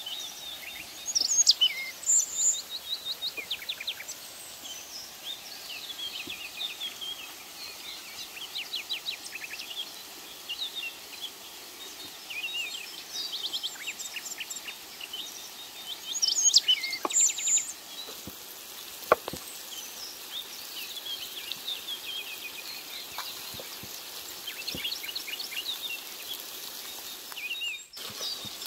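Songbirds chirping and trilling, loudest about a second in and again just past the middle, over a steady hiss. A few knife taps on a wooden cutting board in the second half.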